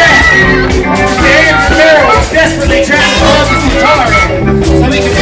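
Live blues-rock band playing loudly, with electric guitar and drums over a steady beat.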